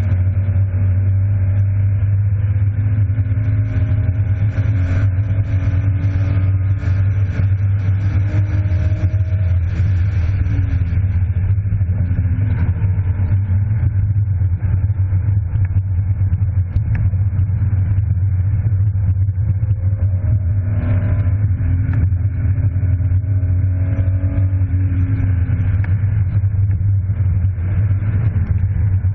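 BMW E36 325i's inline-six engine heard from inside the cabin under hard driving, over a steady low rumble. The revs climb, fall back partway through, and climb again.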